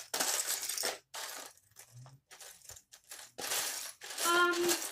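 Loose plastic Lego bricks clattering and clinking as hands rummage through a pile of pieces, in bursts of rattling with short pauses. A brief hum-like vocal sound comes near the end.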